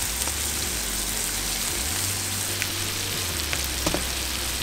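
Fish fillets frying in foaming butter in a pan, a steady sizzle with a few light ticks of spattering.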